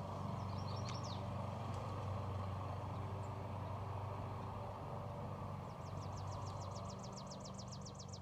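A steady low engine hum runs throughout. A few brief high chirps come about half a second in, and a fast, high-pitched pulsing trill of about eight pulses a second starts near the end.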